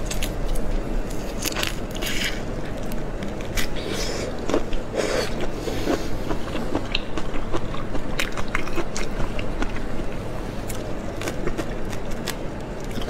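Close-miked eating of whole soy-sauce marinated shrimp: biting and chewing through the shells, with many irregular wet clicks and crunches.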